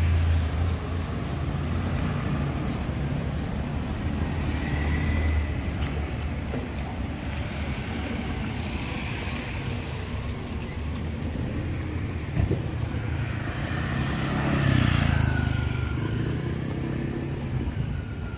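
Road vehicle engines passing on a nearby street: a continuous low engine rumble that swells near the start and again about fifteen seconds in.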